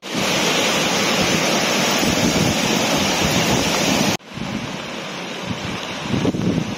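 Flood-swollen river rushing over rapids, a loud steady white-water rush. About four seconds in it cuts to the river heard farther off and quieter, with wind buffeting the microphone near the end.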